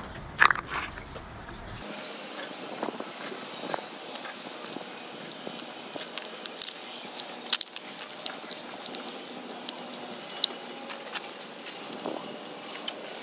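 Plastic parts of a satellite-dish LNB handled by hand: irregular clicks, taps and crinkles of the plastic housing and cap, with sharp snaps about half a second in and again about seven and a half seconds in.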